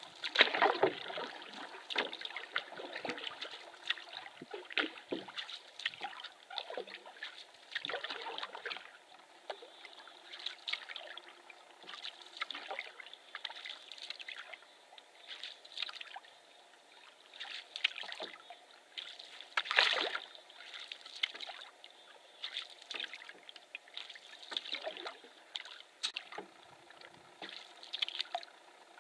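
Canoe paddle strokes in lake water: the blade dipping and pulling, with splashing and dripping at irregular intervals. One louder splash comes about two-thirds of the way through.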